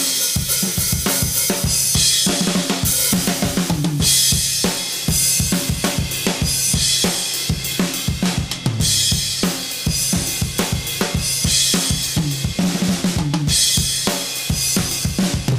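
Tama Starclassic Performer birch-shell drum kit played continuously: fast kick and snare strokes under hi-hat and ride, with cymbal crashes coming back every couple of seconds. Recorded through a single large-diaphragm condenser microphone in front of the kit, with a little reverb.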